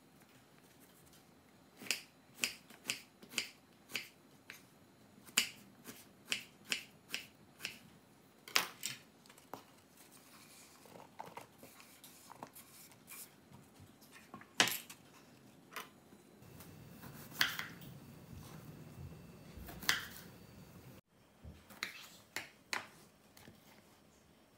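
Kitchen knife chopping cucumber on a wooden cutting board: a run of sharp single chops about two a second, then scattered chops. Later, a low rustling as cut pieces slide from the board into a plastic tub.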